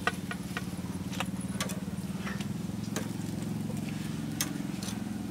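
Metal tongs clicking and tapping against a steel tray and grill grate as grilled mice are moved, a few sharp irregular clicks. Under it runs a steady low mechanical hum.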